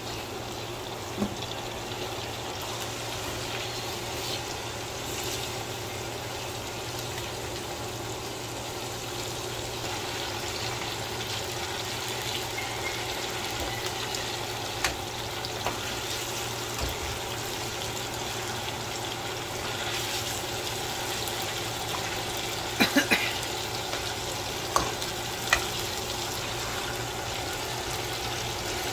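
Spice paste in hot oil sizzling steadily in a nonstick frying pan as raw chicken drumsticks are laid in and fry. A few sharp clicks of a cooking utensil knock against the pan, three in quick succession about 23 seconds in.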